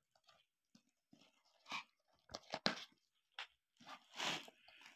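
Packing tape being scratched at and torn from a cardboard shipping box: a series of short, faint scrapes and rips, the longest near the end.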